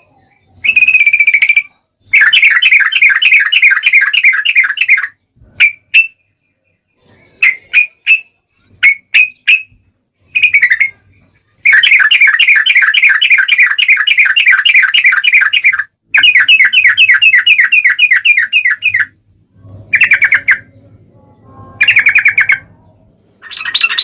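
Yellow-vented bulbul (trucuk) chattering loudly: long runs of rapid repeated notes lasting several seconds each, broken by short single calls and brief pauses.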